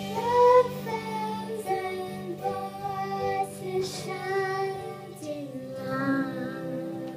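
A young girl singing a melody into a karaoke microphone, with music playing along behind her voice.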